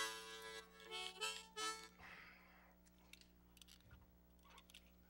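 Harmonica blown in a short run: a loud held chord at the start, then three quick separate notes, all over within about two seconds.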